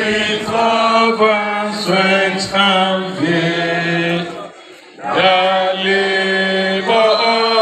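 A standing crowd singing an anthem together in held notes, with a short pause for breath about four and a half seconds in.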